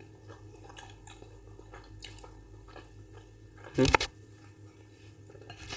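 Chewing and eating sounds with faint clicks and scrapes, as of wooden spoons on plates of rice and beans, and one loud, short thump about four seconds in.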